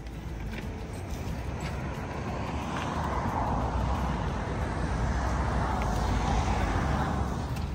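A motor vehicle passing close by on the street: engine rumble and tyre noise swell over several seconds, then the sound cuts off suddenly near the end.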